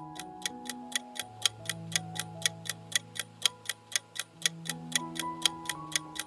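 Clock-style countdown timer ticking sound effect, about five even ticks a second, over soft background music with long held notes.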